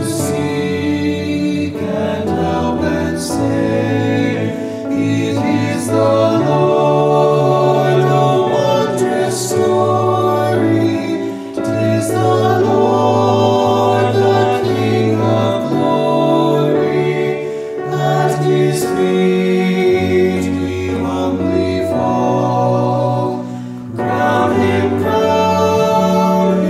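Male vocal ensemble singing a hymn in close harmony, held chords over a low bass part.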